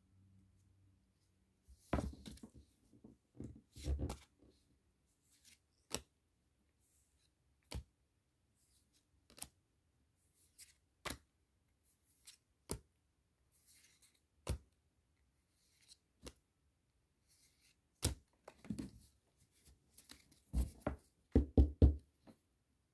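Pokémon trading cards being flipped through one at a time, each making a sharp card snap about every second and a half to two seconds, with paper-and-foil rustling about two seconds in. Near the end a quick run of louder knocks and crinkles as a foil booster pack is handled.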